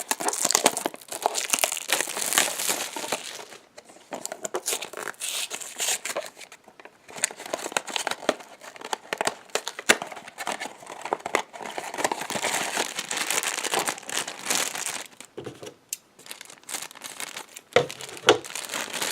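Blind-box toy packaging being torn open by hand: crinkling plastic and cardboard in irregular spurts with short pauses, and a few sharper clicks near the end.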